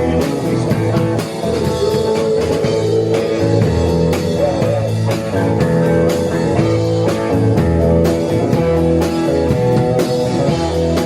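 Band music with guitar and a steady drum beat, playing continuously.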